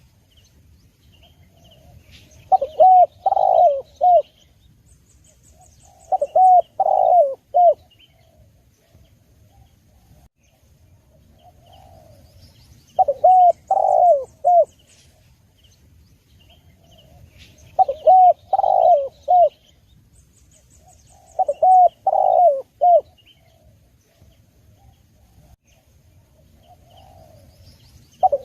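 Spotted dove (tekukur) cooing: short phrases of a few low coo notes, the middle note loudest, repeated about every four to five seconds, with softer phrases between. Faint chirping from small birds sounds behind it.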